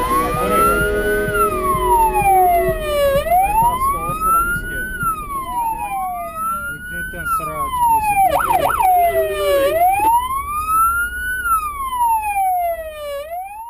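Fire engine siren wailing, its pitch rising and falling slowly about every three to four seconds, with a brief fast warble about eight seconds in; a vehicle engine rumbles underneath.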